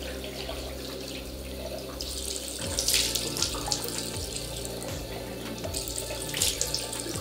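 Tap running into a bathroom sink while cupped hands splash water onto the face to rinse off cleansing foam, with a few louder splashes.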